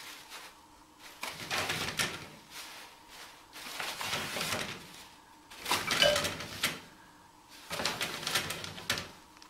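Toilet paper rustling and crinkling as a kitten paws at it and pulls it down off the roll, in four bursts of about a second each, the loudest about six seconds in.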